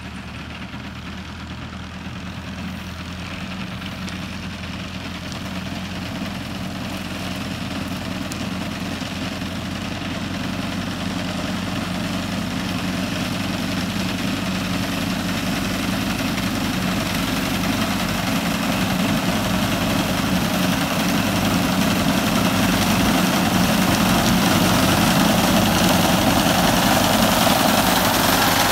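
Fiat tractor's diesel engine running steadily as it drives a front-mounted reaper through standing wheat, with the noise of the reaper cutting the crop. It grows steadily louder as the tractor comes closer.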